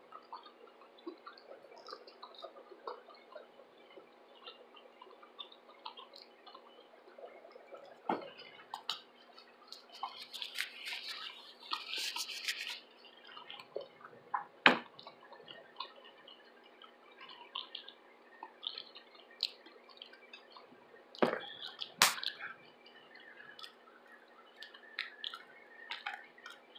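Close-miked mouth sounds of eating fried shrimp: soft wet chewing and lip smacks, with a scratchier stretch about ten to thirteen seconds in. A few sharp clicks stand out, the loudest about fifteen and twenty-two seconds in.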